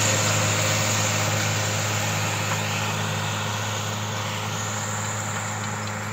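John Deere tractor's diesel engine running steadily under load while pulling a disc harrow through the soil. The sound fades slowly as the tractor moves away.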